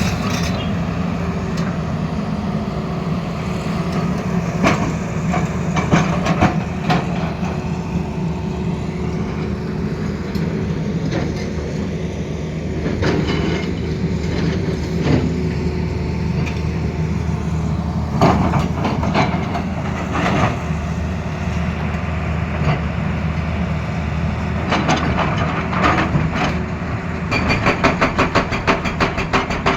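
Tata Hitachi excavator's diesel engine running steadily under a hydraulic rock breaker, with scattered sharp impacts on stone. Near the end comes a fast run of hammer blows, several a second.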